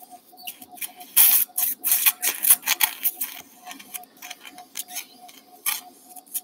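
Surgical suction tip drawing blood and clot out of an open surgical wound, in irregular hissing, sputtering bursts that are loudest from about one to three and a half seconds in.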